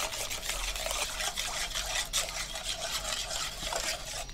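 Metal spoon stirring a thin batter of coconut milk and rice flour in a metal saucepan: a steady scraping with small clicks of the spoon against the pot.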